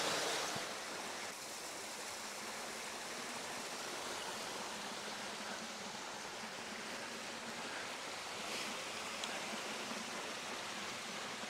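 Small rocky forest brook running steadily over stones: a constant rush of water.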